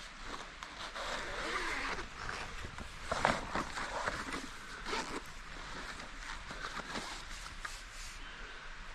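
Handling noise as new camping gear is unpacked: rustling and scraping with scattered clicks, loudest in a brief burst about three seconds in.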